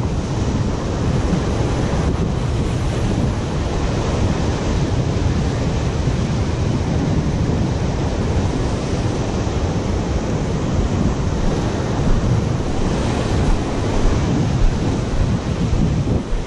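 Ocean surf breaking against a rocky shoreline, with wind buffeting the microphone; the surf swells louder a few times in the last few seconds.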